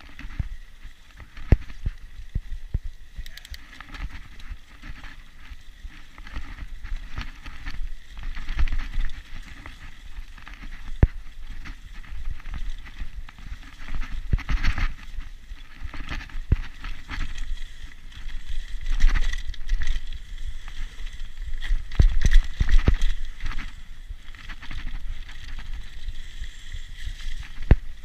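Mountain bike riding along a dirt trail: tyres running over the ground, with the bike rattling and knocking over bumps all the way through.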